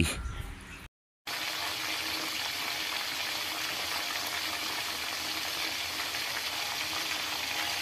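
A boiling-water sound effect: a steady bubbling hiss that starts suddenly about a second in and holds at an even level.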